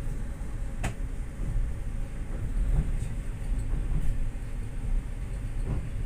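Passenger train running along the track, heard from inside the carriage: a steady low rumble of wheels and carriage, with a sharp click a little under a second in.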